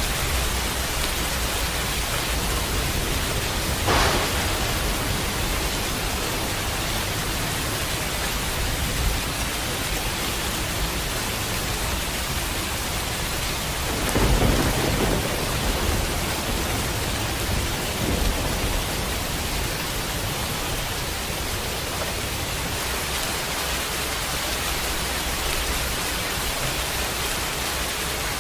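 Steady heavy rain hissing, with a sharp thunder crack about four seconds in and a louder low roll of thunder about halfway through.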